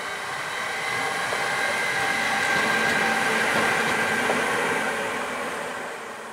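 Siemens Vectron electric locomotive running light past, with no wagons behind it: a steady rushing of wheels on rail under several high steady whining tones from its traction equipment. It swells as the locomotive goes by and fades from about five seconds in.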